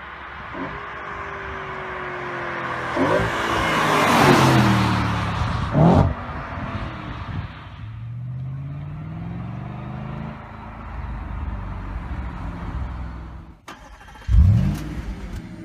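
Audi RS4 B8's 4.2-litre V8 through a tuned aftermarket exhaust, accelerating hard toward and past, loudest about six seconds in, then pulling away with the revs climbing again. Near the end, a short, sharp free-rev blip from the stationary car.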